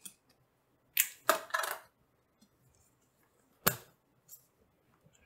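Cardboard packaging being cut open and handled by hand. A short scraping rustle comes about a second in, then one sharp tap a little over two seconds later.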